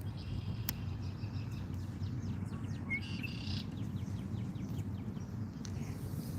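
Birds chirping and twittering in the background for a couple of seconds in the middle, over a steady low outdoor rumble.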